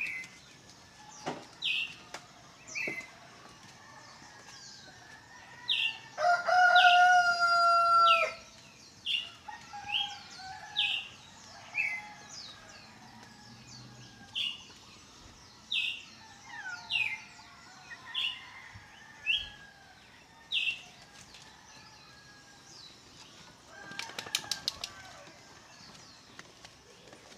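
A rooster crows once, loudly, about six seconds in; the crow lasts about two seconds. Another bird repeats a short, sharp, falling call roughly once a second. Near the end there is a quick run of clicks.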